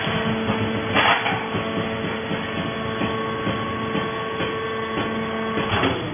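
Vertical hydraulic baler's power unit running with a steady mechanical hum while the ram presses sisal fibre into a bale, with two short bursts of noise, about a second in and near the end.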